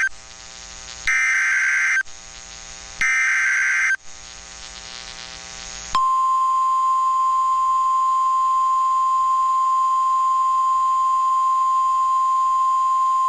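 Emergency Alert System SAME header on NOAA Weather Radio: two one-second bursts of two-tone data warble a second apart. About two seconds later, the steady 1050 Hz weather-radio warning alarm tone starts and holds. Together they signal the start of a new warning broadcast.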